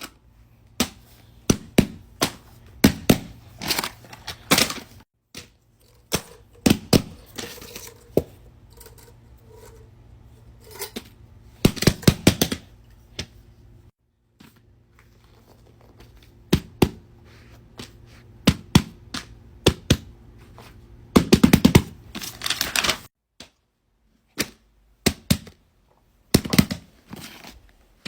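Plastic fidget toys being handled, giving irregular clicks, taps and pops, with runs of rapid clicking about 12 s and 21–23 s in.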